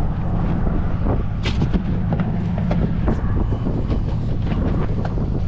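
Wind buffeting the microphone in a steady low rumble, with scattered knocks, clicks and cloth rubbing from a caught fish being handled and hands wiped on a towel right at the camera.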